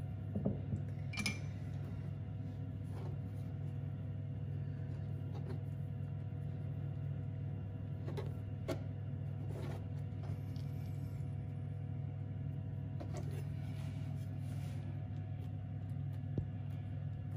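A steady low hum with a few faint, scattered taps and clicks of utensils on a wooden chopping board as shortcrust pastry is folded and rolled around sausage meat; one light knife click comes near the end.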